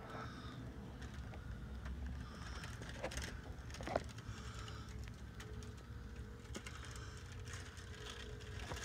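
A few faint, scattered clicks and knocks over a low steady hum.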